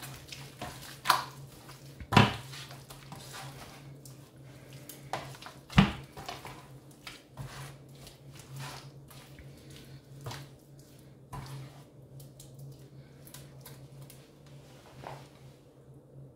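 Hands rubbing and smearing wet marinade over a pork shoulder in a metal roasting tin, with scraping and sharp knocks against the tin. The three loudest knocks come about one, two and six seconds in. A low steady hum runs underneath.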